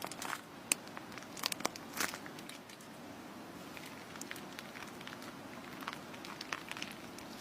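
Slime being worked by hand, giving quiet scattered crackles and sharp little clicks. The clicks come thickly in the first two seconds, then thin out to an occasional pop.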